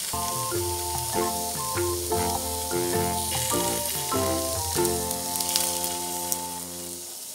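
Oil sizzling steadily as eggplant slices fry in a nonstick pan, with a few faint spoon ticks. Background music of held notes plays over it and stops near the end.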